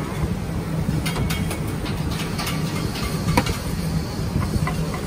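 Steady low drone of a hawker stall's kitchen equipment, with scattered clinks and scrapes of a spoon against a pot as braised food is scooped out. The sharpest clink comes a little past three seconds in.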